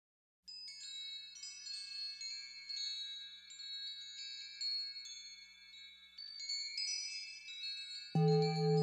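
Wind chimes tinkling: many overlapping high ringing notes for the logo intro. Near the end a louder low humming tone with a slow, even pulse comes in under them.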